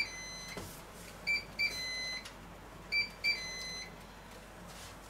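Electric contact grill (Tefal OptiGrill) sounding its signal: two short high beeps followed by a longer, slightly lower beep, repeated three times about every one and a half seconds.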